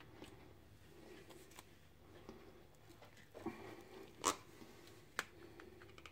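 A spoon and an opened tin can being handled: a few faint scrapes and three sharp metallic clinks, the loudest a little past halfway, over a faint steady hum.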